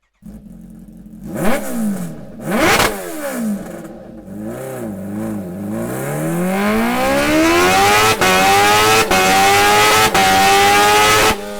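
Kawasaki Ninja H2R's supercharged inline-four: two sharp throttle blips, then smaller blips, then a long rising run up through the gears with three very short breaks at the upshifts. It cuts off abruptly near the end.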